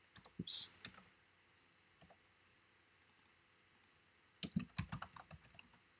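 Computer keyboard typing: a few scattered keystrokes at the start, a quiet pause, then a quick run of keys about four and a half seconds in as a word is typed.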